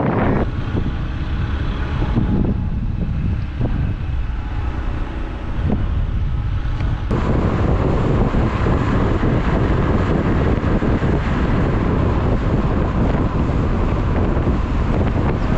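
Car driving on a highway: steady road and engine noise heard from inside the cabin, then, about seven seconds in, a sudden louder rush of wind over the microphone as it is held out of the driver's window, with the road noise underneath.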